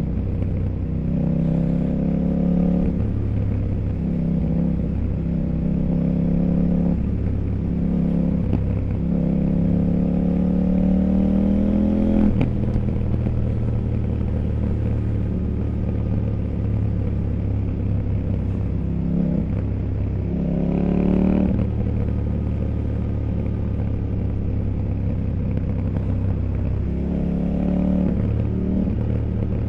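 CFMOTO 800NK Sport motorcycle's parallel-twin engine under way, its pitch rising and falling several times as the throttle is worked. The longest climb rises steadily for about five seconds before dropping off sharply near the middle, with a steady low rumble underneath.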